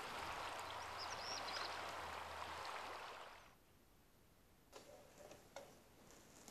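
Steady riverside outdoor ambience, an even hiss with a few faint high chirps. It cuts off abruptly about three and a half seconds in to a hushed room tone, with two faint clicks about a second apart.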